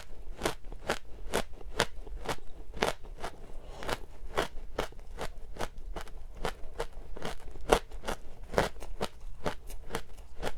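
Frozen matcha ice being chewed, a steady run of crisp crunches about two to three a second.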